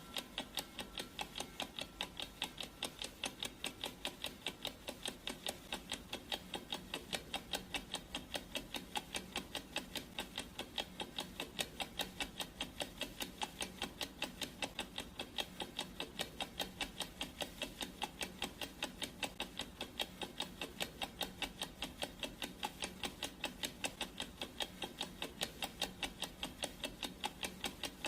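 Clock ticking sound effect: rapid, perfectly even ticks with no change in pace.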